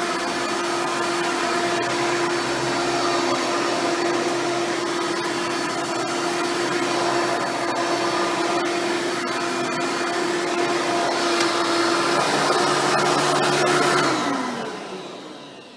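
Hoover Elite-style upright vacuum running steadily with a steady motor hum, tested after a new belt and brushroll were fitted. About 14 s in it is switched off, and the motor's pitch falls as it winds down.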